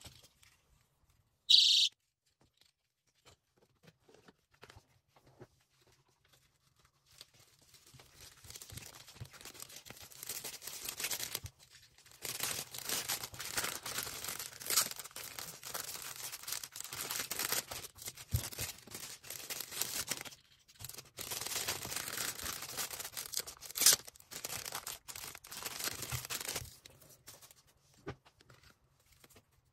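Plastic packaging being handled while an order is packed: crinkling and rustling with small sharp crackles. It starts about seven seconds in and goes on until a few seconds before the end, with two brief pauses. Near the start there is one short high-pitched sound.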